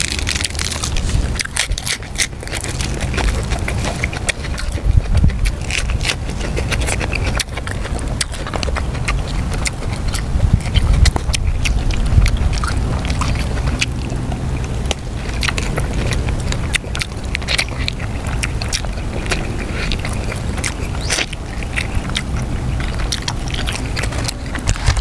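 Close-miked eating sounds of a person chewing soft stewed pork: wet smacking and many short clicks, over a steady low rumble.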